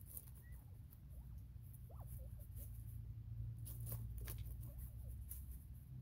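Northern bobwhite quail giving a few short, soft calls, some of them rising, over faint clicks of pecking and scratching in hay and a low steady rumble.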